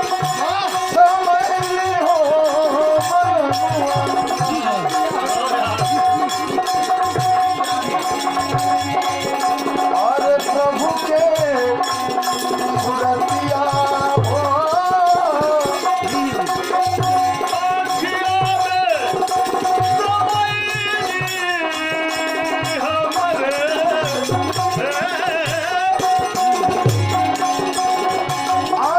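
Indian devotional folk music in teen taal: a sustained melody with gliding phrases over steady hand-drum strokes and a rattling percussion, with no clear singing.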